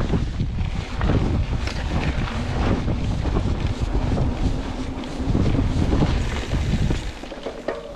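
Wind buffeting the microphone as a YT Capra Elite full-suspension mountain bike rolls fast down a dirt singletrack, with tyre noise on the dirt and frequent knocks and rattles from the bike over bumps.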